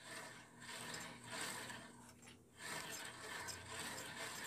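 The blade and upper wheel of a Craftsman 10-inch three-wheel bandsaw being turned by hand with the motor off. It makes a faint rubbing and scraping sound that comes in several swells.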